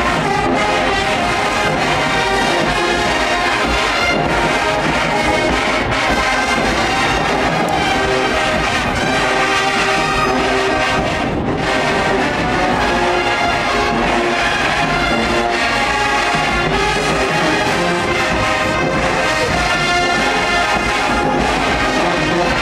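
Marching band playing loudly, led by its brass section of trombones and trumpets.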